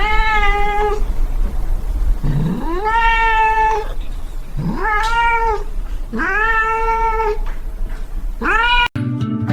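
Domestic cat meowing five times, long drawn-out calls about a second each, each rising at the start and then held at a steady pitch, over a low steady hum.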